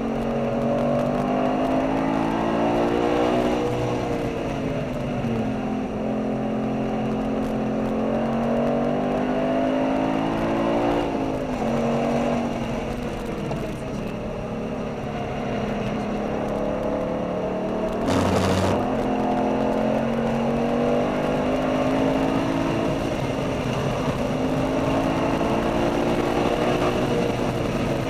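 V8 sports car engine driven hard, heard from inside the cabin: its pitch climbs under acceleration and drops again through shifts and braking several times over. A short burst of noise cuts across it about two-thirds of the way in.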